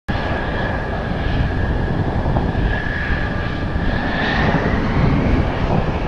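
Jet whine from the F-2A's single General Electric F110 turbofan at low power as the fighter taxis. It is a steady high whine that rises slightly about three to four seconds in, over a low, gusty rumble of strong wind buffeting the microphone.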